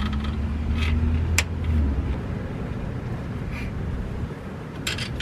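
A few sharp metallic clicks of a wrench on the shifter cable bracket's jam nut, the strongest about a second and a half in. A low rumble runs under them and fades out after about two seconds.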